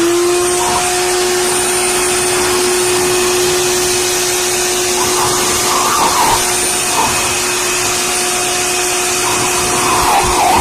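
Electric blower running steadily at full speed: an even rush of air under a constant motor whine.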